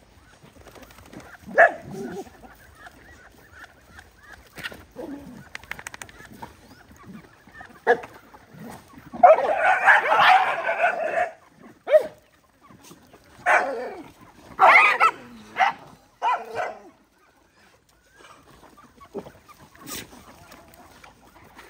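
A pack of dogs crowding together over food, breaking into short bursts of barking and snarling as they squabble. The loudest is a scuffle of about two seconds near the middle, followed a few seconds later by several shorter bursts.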